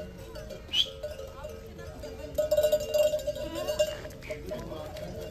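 Bells on a walking flock of sheep clanking steadily, louder and busier from about two and a half to four seconds in.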